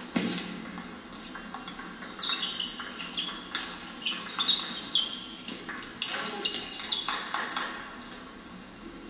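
Table tennis rally: a celluloid ping-pong ball clicking sharply off the bats and table in quick succession, with sports shoes squeaking on the hall floor, most between about two and five seconds in.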